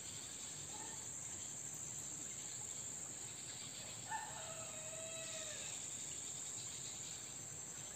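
Steady high-pitched insect chorus, with a faint rooster crow about four seconds in: short notes, then one longer held note.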